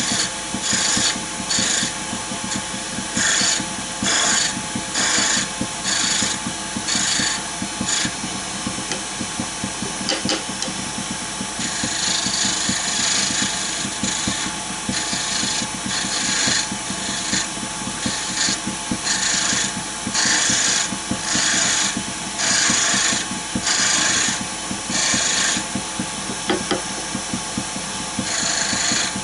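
Wood lathe running with a turning tool cutting a small wooden spindle: repeated short hissing cuts, each under a second, as a concave curve is shaped bit by bit. A longer unbroken cut comes a little before the middle. The lathe's steady hum runs underneath.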